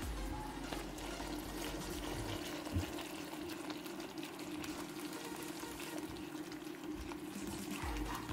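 Thick ketchup-based barbecue sauce simmering and bubbling in a small nonstick pan, stirred and scraped with a silicone spatula. A steady low hum runs underneath, and there is a single knock about three seconds in.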